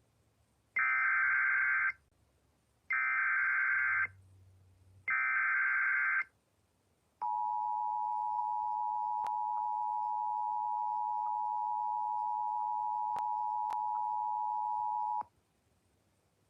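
Emergency Alert System SAME header: three bursts of about a second each of buzzy digital data tones, a second apart. About a second after the last burst comes the steady EAS two-tone attention signal, held for about eight seconds, announcing a severe thunderstorm warning.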